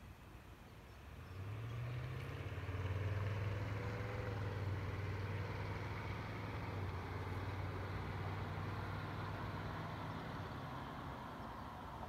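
Low, steady engine hum that comes up about a second in and holds, easing slightly near the end.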